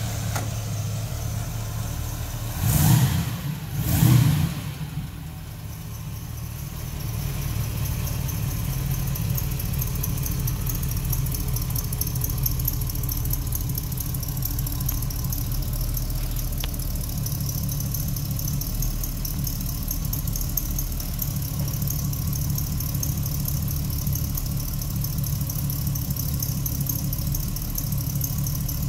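A 1967 Chevrolet Camaro's engine idling, with the throttle blipped twice in quick succession about three seconds in before it settles back to a steady idle.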